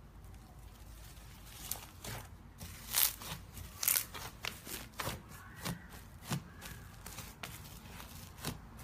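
Thick slime being squeezed and kneaded by hand, making a string of irregular sharp pops and crackles that start about a second and a half in and are loudest about three and four seconds in.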